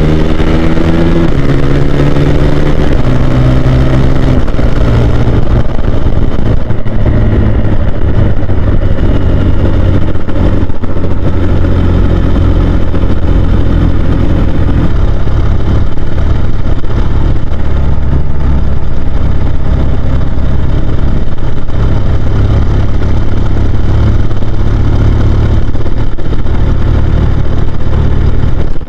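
Husqvarna Svartpilen 401's single-cylinder engine accelerating through the gears. The pitch climbs and drops back at three upshifts in the first few seconds. The engine then runs at a steadier cruising speed with small throttle changes.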